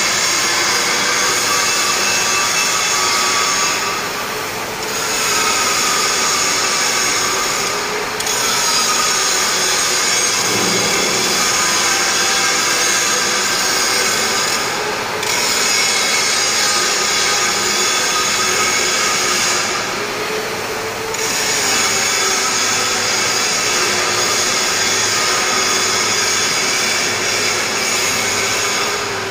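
Angle grinder grinding metal, its motor whine sagging and recovering under load, easing off briefly about four times between passes.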